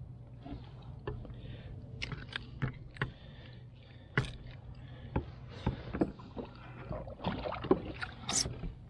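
Irregular knocks, clicks and rattles of gear and a fish being handled aboard a fishing kayak, a few of them sharper and louder near the end, over a steady low hum.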